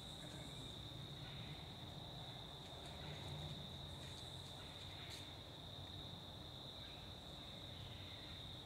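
A steady, high-pitched trill of crickets in autumn woods, with a faint rustle in dry leaves about five seconds in.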